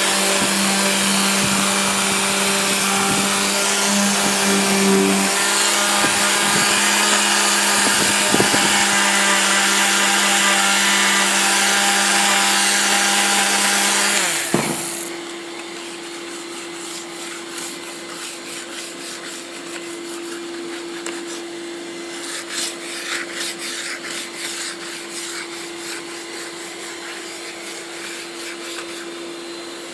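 Handheld power detail sander running against the painted wooden panels of a door, a steady motor hum with the rasp of the sanding pad on paint. About halfway through it drops suddenly much quieter, the steady hum and some light scratching carrying on.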